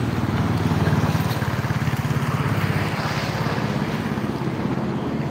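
Small motorcycle engine running close by with a fast, even putter, loudest about a second in.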